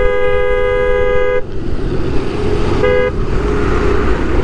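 Vehicle horn honking in traffic: one steady two-pitch blast of about a second and a half, then a short second toot about three seconds in. Underneath is constant road and wind rush from riding.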